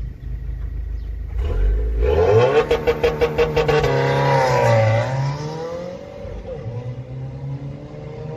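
Subaru WRX's FA20 turbocharged flat-four, heard through an aftermarket MAPerformance J-pipe and the stock catback exhaust, launching from a standstill. It idles, then revs up sharply and holds high revs with a rapid stuttering pulse. The revs dip and climb again as the car pulls away, and the exhaust fades as it drives off.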